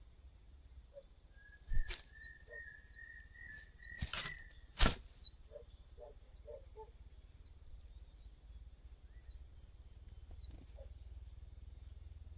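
Nestling birds cheeping: short, high, downward chirps repeated a few times a second, with a wavering whistled note early on. Three sharp knocks stand out, the loudest sounds.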